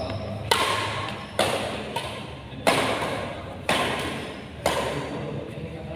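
Badminton rackets striking a shuttlecock in a rally, five sharp hits about a second apart, each ringing on in the reverberant hall.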